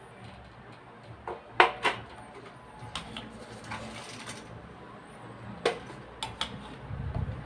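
A few sharp knocks and clatters as a rice cooker's metal body is handled and moved around, the loudest about a second and a half in, with a low rumble near the end.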